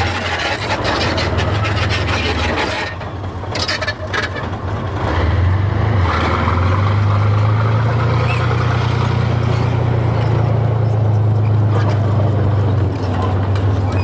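Soviet-built tank driving past close by: its diesel engine runs with a deep, steady drone that grows louder about six seconds in, with the tracks clattering over it.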